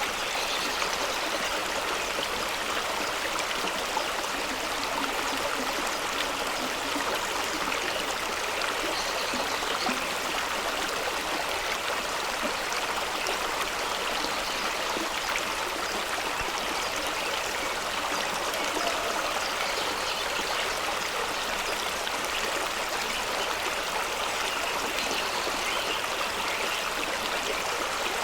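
Fast stream water rushing and splashing over rocks at the foot of a small waterfall, a steady even rush with fine gurgling throughout.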